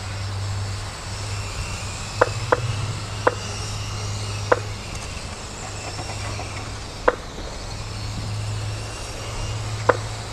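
Electric mini RC touring cars (M-chassis) racing around a track, heard as a steady hum with a faint high whine, broken every second or two by a short sharp clack.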